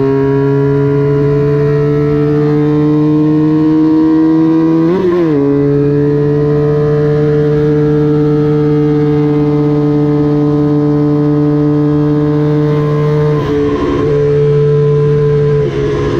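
Small vintage racing motorcycle engine running hard at high revs, its pitch climbing slowly, with a quick gear change about five seconds in and brief drops in revs near the end.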